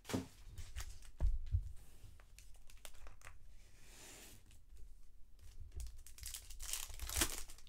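Foil wrapper of a trading-card pack crinkling as it is handled, then torn open with a loud rip near the end. A single knock sounds about a second in.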